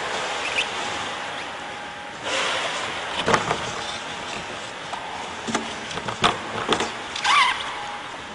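Water sloshing around a bottlenose dolphin at the pool's edge, with several sharp knocks and a short squeak that wavers in pitch near the end.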